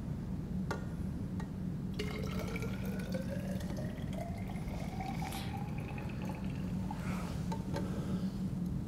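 Water poured from a glass flask into a tall glass graduated cylinder. The filling note starts about two seconds in and rises steadily in pitch as the cylinder fills, then fades out near seven seconds.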